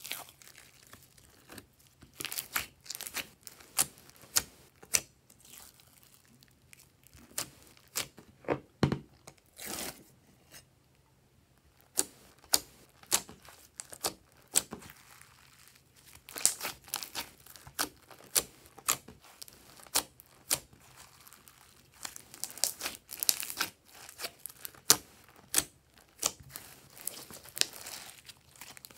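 Thick glossy slime being squeezed, pressed and stretched by hand, giving irregular sticky pops, clicks and crackles as it pulls apart, with a quieter gap about ten seconds in.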